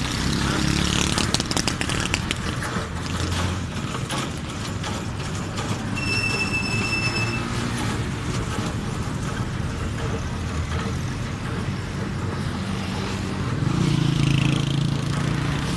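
Road traffic: motorcycle and small-vehicle engines running and passing. About six seconds in there is one high steady beep lasting a second and a half. Near the end a louder engine drone swells as a vehicle goes by.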